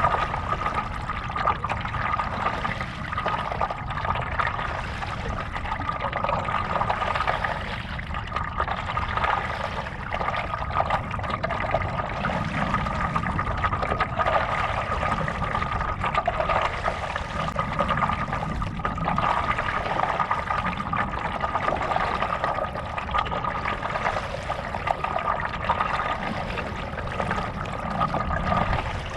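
Water splashing and trickling around a stand-up paddleboard as it is paddled, with the paddle dipping and pulling through the lake water.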